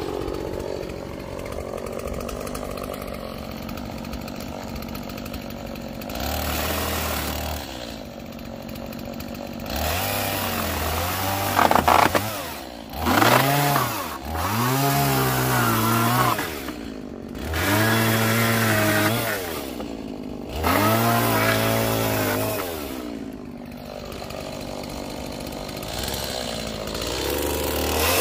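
Chainsaw cutting through an old wooden pallet. It runs low at first, then is throttled up again and again, the engine pitch rising and sagging back with each cut, with a brief sharp rattle about twelve seconds in.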